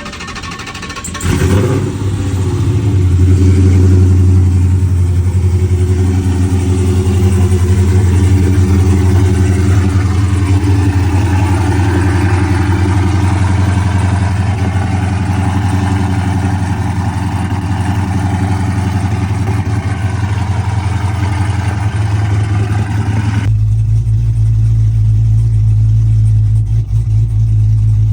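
A Dodge Charger SRT's V8 starts up and settles into a steady idle, misfiring badly. Near the end the sound abruptly turns duller, with a heavier low hum.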